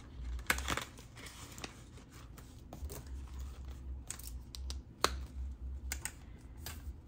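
Paper bills and a cash envelope being handled: rustling and crinkling with a few sharp clicks, the loudest about five seconds in.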